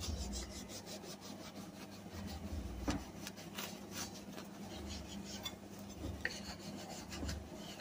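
Knife sawing back and forth through a loaf of oat bread on a wooden cutting board, in repeated short rasping strokes.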